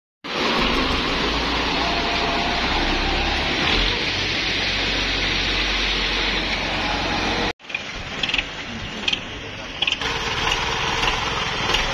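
Diesel engine of a Belarus MTZ tractor running steadily, its pump freshly redone. A bit over halfway the sound breaks off and comes back quieter, with a few sharp clicks, before running steadily again.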